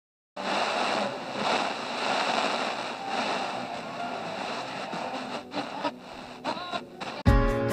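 Radio static hissing and warbling as the tuning dial of a wooden tabletop radio is turned across the band, with a few brief whistling tones. Near the end the static cuts to guitar music, as if a station has been tuned in.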